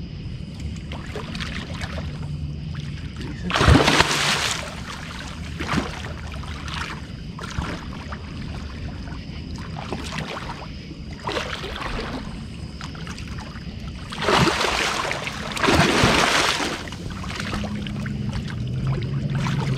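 A big hooked catfish, around 60 pounds, thrashing and splashing at the surface beside the boat as it is played on the line. Three loud splashes come about four seconds in and twice around fifteen to sixteen seconds, with smaller ones between, over a steady low hum.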